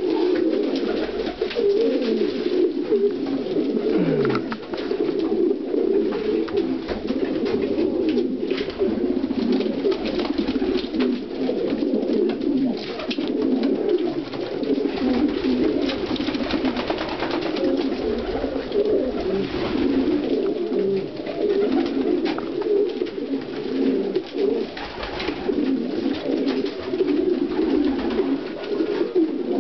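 Many domestic pigeons cooing together in a loft, their coos overlapping into a steady, unbroken chorus, with now and then a faint click.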